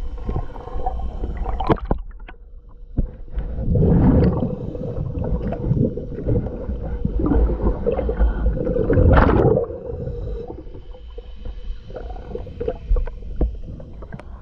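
Underwater: a diver's exhaled breath bubbling out of the regulator in two long surges, about three and a half seconds in and again from about six to nine and a half seconds, over a faint steady hum.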